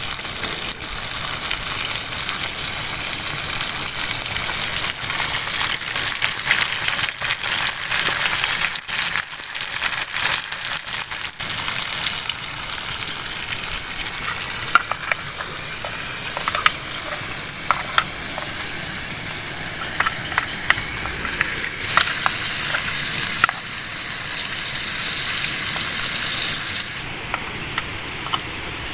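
Food frying in hot oil, a steady sizzle with scattered small pops; the sizzle drops off sharply near the end.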